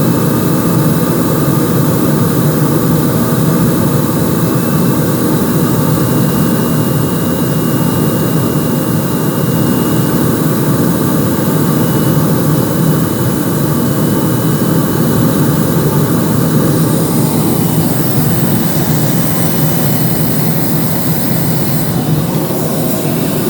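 Aircraft cabin noise in flight: the steady roar of the engines and the air rushing past the fuselage, with a faint thin whine over it from about five seconds in.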